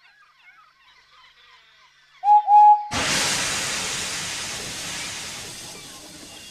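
Steam locomotive whistle giving two short toots, then a sudden loud hiss of steam that slowly fades away, over faint birdsong.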